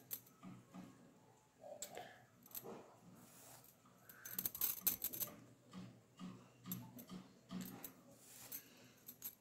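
Faint scratching and clicking of a needle pushed through aida cloth stretched in a plastic embroidery hoop, with thread drawn through the fabric; a longer rasp of thread being pulled comes about halfway through.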